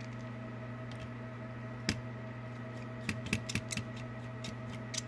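Small clicks of a precision Phillips screwdriver working tiny screws out of a circuit board: a single click about two seconds in, a quick cluster of clicks a second later, and another near the end. A steady hum runs underneath.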